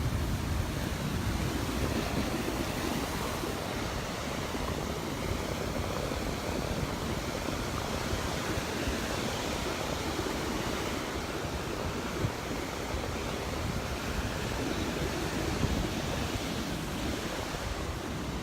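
Gulf surf breaking and washing up the beach in a steady rush, with wind buffeting the microphone.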